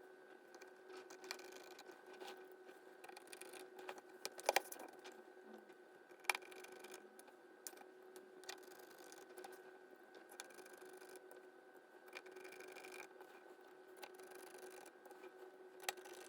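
Faint steady hum with scattered sharp clicks and taps of small parts being handled, the loudest a quick double click about four and a half seconds in.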